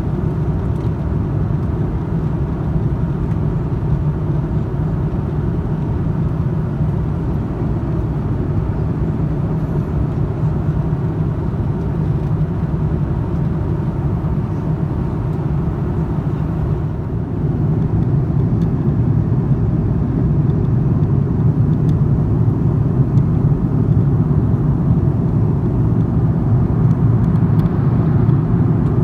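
Airbus A330-300 cabin noise in flight: a steady low rumble of engines and airflow, growing a little louder a bit past halfway through.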